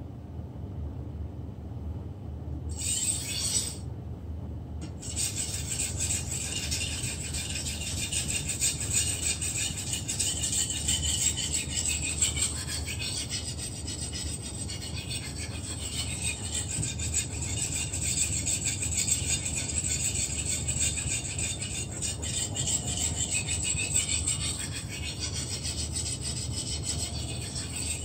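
Steel blade of a long fish-processing knife being stroked across a whetstone: a steady scraping grind that starts about three seconds in, stops briefly, then runs on.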